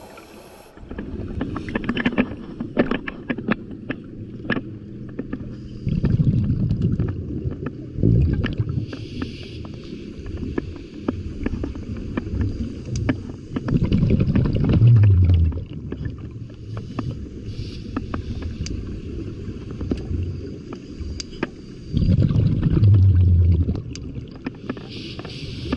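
Scuba diver breathing through a regulator underwater: exhaled bubbles rumble out in four loud bursts, with fainter hissing inhalations between them and scattered sharp clicks throughout.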